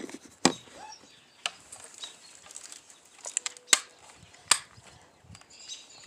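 Handling noise from a hand-held phone camera: a few scattered sharp clicks and knocks, with faint bird chirps between them.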